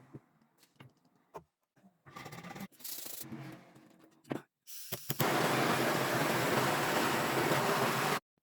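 Hand work on a single-barrel shotgun: a few light clicks and two short rubbing, scraping stretches, then a loud, even hiss for about three seconds that cuts off suddenly.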